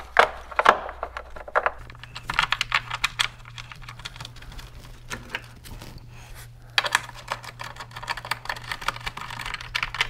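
Ratchet wrench clicking in quick bursts of rapid clicks while tightening the battery hold-down bolt.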